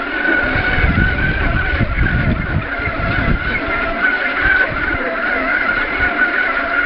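Electric motor and drivetrain of a 1/18-scale 4WD RC buggy whining steadily at high pitch as it drives, the whine wavering slightly, with uneven low rumble and thumps beneath.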